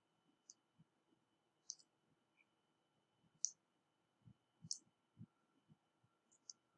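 Near silence broken by about half a dozen faint, sharp clicks and a few soft low taps, spaced irregularly about a second apart: clicks of a computer pointing device.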